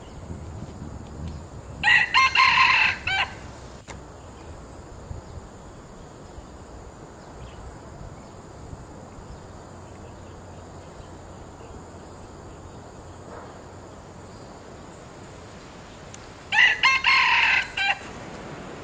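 Red junglefowl rooster crowing loudly twice, about fifteen seconds apart. Each crow is a short, broken call of about a second and a half, the second one near the end.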